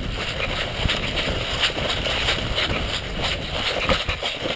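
Loud, continuous rustling noise with many irregular sharp clicks and knocks, the sound of movement and wind on the microphone.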